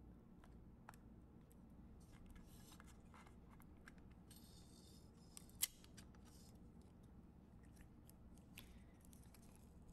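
Faint handling sounds of a small plastic VU-meter assembly being taken apart by hand: light rubbing and scraping of plastic, a few small clicks, and one sharp click a little past halfway.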